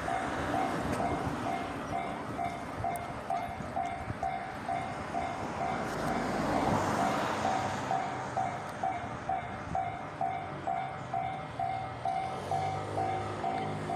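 Japanese railway level-crossing alarm bell ringing steadily, about two dings a second, while a train runs past, loudest about seven seconds in. A low steady hum joins near the end.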